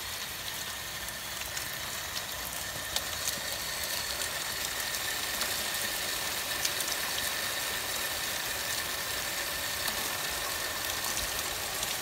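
Steady rain, with water running and splashing down a copper rain chain of hand-hammered cups, scattered drops ticking.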